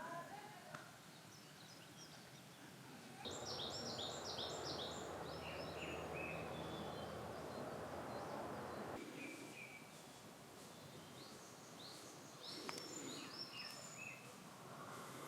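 Small songbirds chirping and singing, many short calls. A steady rushing noise comes in suddenly about three seconds in and cuts off about nine seconds in.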